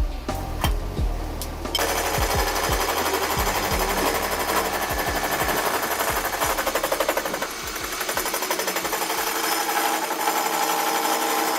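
Rapid, even rattling of metalworking in a workshop, a fast pulsing that starts about two seconds in, with background music underneath.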